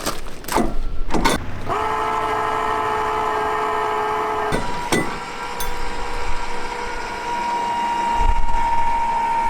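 Electric caravan jack (Ezi-Jack) motor whining steadily as it raises the caravan's drawbar off the tow hitch, after a few sharp clicks. About halfway through the fuller motor note cuts off and a thinner steady whine carries on.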